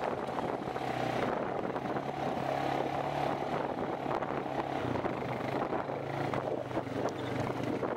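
Quad (ATV) engine running steadily while riding along a dirt trail, heard from aboard the moving quad with wind noise on the microphone.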